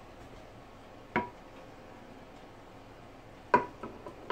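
Glass mixing bowl clinking while thick batter is poured and scraped out of it: a sharp knock with a short ring about a second in, a louder one about three and a half seconds in, then a few lighter taps.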